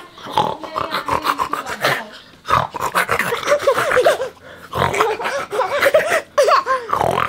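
A toddler babbling and squealing excitedly in short bursts of bending pitch, with a brief pause a little after two seconds.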